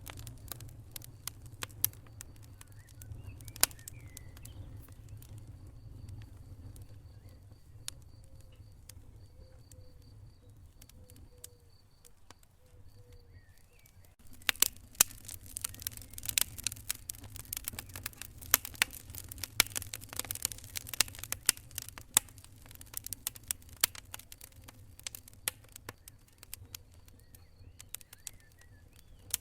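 Wood fire in a fireplace crackling over a low steady rumble of flames. Scattered pops in the first half give way, about halfway through, to a dense run of sharp crackles and pops.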